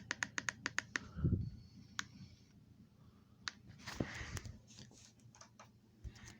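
A quick, even run of sharp clicks, about ten a second, for the first second, then a soft low thump, followed by scattered single clicks and another thump near the end.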